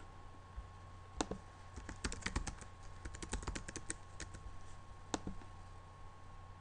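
Typing on a computer keyboard: a quick run of key clicks, densest between about two and four seconds in, with a few single clicks before and after, as a username is typed.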